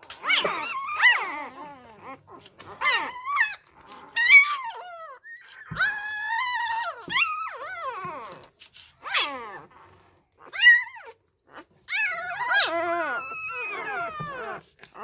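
Newborn Labrador puppies crying: a run of high, wavering squeals and whines, some short and some drawn out for a second or two.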